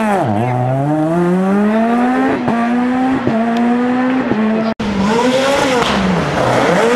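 Peugeot 207 S2000 rally car's two-litre four-cylinder engine revving hard as the car accelerates away from a tight bend, its pitch climbing, with short cracks at the gear changes. About five seconds in it gives way to another 207 S2000's engine, dropping and rising in pitch twice.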